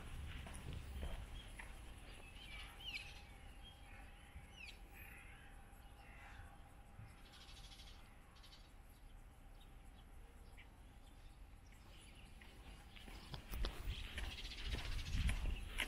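Faint outdoor ambience with a few small birds chirping during the first five seconds over a faint steady hum. About thirteen seconds in, low rumble and soft thumps from walking grow louder.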